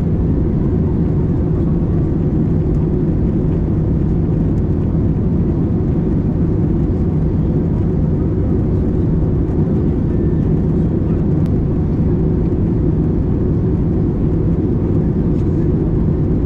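Steady, loud cabin noise aboard an Airbus A320 in flight: a constant low rumble of engines and airflow past the fuselage.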